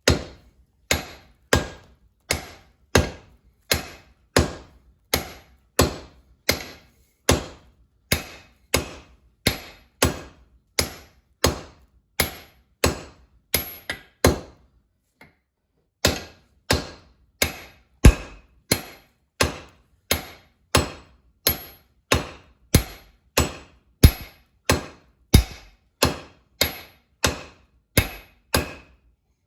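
Hand hammer striking steel on an anvil in a steady rhythm of about three blows every two seconds, each blow with a short ring. The blows stop for about a second and a half halfway through, then resume.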